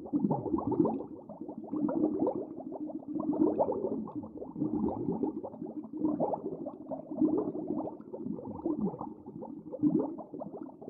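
Underwater water sounds: a dense, irregular bubbling crackle in uneven surges, with a few low swooshing sweeps.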